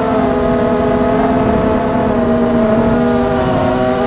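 Brushless motors and propellers of a 250-size FPV racing quadcopter whining steadily in flight, the pitch wavering slightly with throttle, over a rush of propeller wash, as picked up by the camera on the quad.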